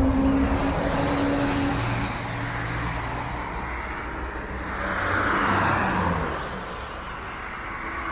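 Street traffic on a wet street: a car passes by, its hiss swelling and fading about five to six seconds in, over a steady low hum.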